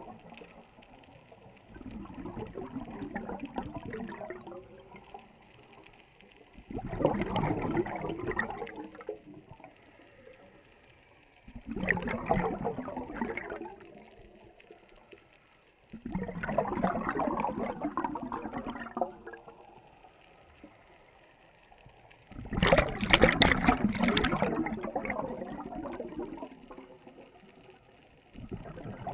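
Scuba diver's exhaled breath bubbling out of the regulator, heard underwater: six bursts of bubbling, each two to four seconds long, about every five to six seconds, with quiet gaps between as the diver breathes in. The burst a little past the middle is the loudest.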